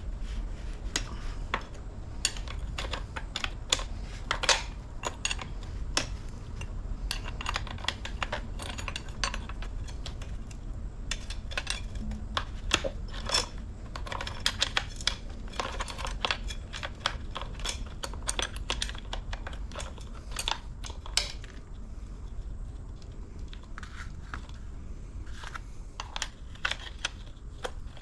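Irregular small metallic clicks and clinks, some in quick clusters, from a wrench working the bar nuts off a Husqvarna 435 chainsaw and from the saw's parts being handled.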